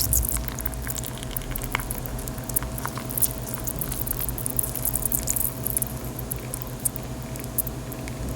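Assorted pieces of chalk soaking in water, giving scattered small crackles and pops as the water soaks in, with a sharper click right at the start.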